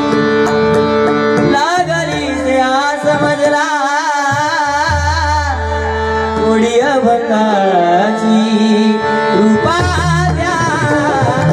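A male voice singing a Marathi abhang (devotional bhajan song) in long, wavering, ornamented held notes. A hand-played two-headed barrel drum accompanies him.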